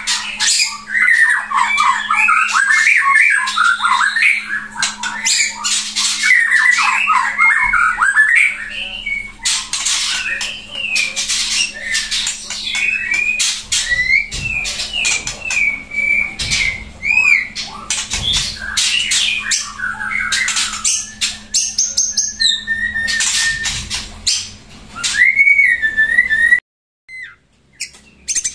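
White-rumped shama (murai batu) singing in its cage: a loud, varied song that starts with rapid warbled phrases and then turns to sharp rattling clicks mixed with clear whistles. It breaks off suddenly near the end.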